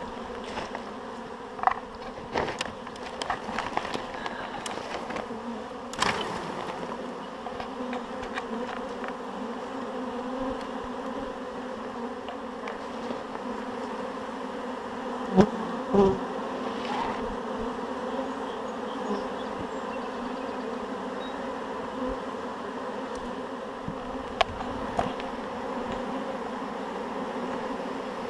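Honeybee swarm buzzing steadily around a hive box as it settles in after being shaken off its branch. A few sharp knocks sound over the hum, the loudest two in quick succession about halfway through.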